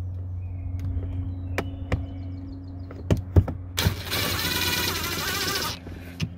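A cordless impact driver drives a screw into the door's interior handle trim. After a few sharp clicks, it runs in a dense hammering rattle for about two seconds, starting about four seconds in. A steady low hum sits underneath throughout.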